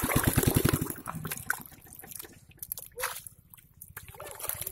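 Muddy water sloshing and splashing as a metal bowl scoops through a flooded hole in the mud, loudest in about the first second. It is followed by smaller scattered splashes and drips, with a low, fast, steady throb underneath that fades after the first second or two.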